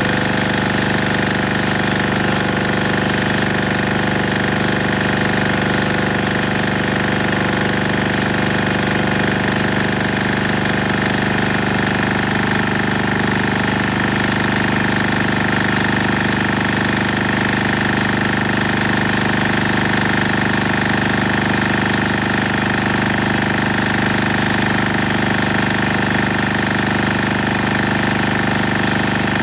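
Denyo DA-2405 diesel generator running steadily under about 1.2 kW of electric heater load, while its fuel feed is being switched over from plain diesel to a 20% water-in-diesel emulsion fuel.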